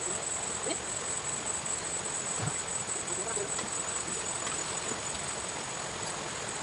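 A steady high-pitched insect chorus over an even hiss, with a few faint brief ticks.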